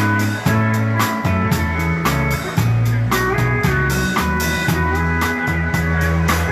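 A Texas Czech dance band playing live, with bass notes and drums keeping a steady beat under guitar and other sustained melody notes.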